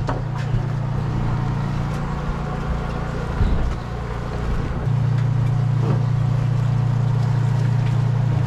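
Steady low engine drone of a fishing boat running at the fishing spot, growing louder and steadier about five seconds in. A few light knocks and clatter on deck ride over it.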